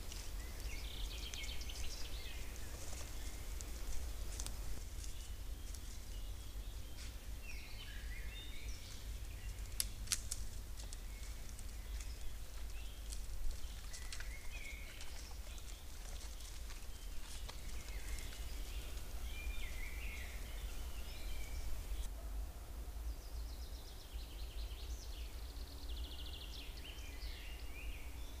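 Wild songbirds singing in a spring woodland, heard through a trail camera's microphone over a steady low hum, with a few sharp clicks about four and ten seconds in.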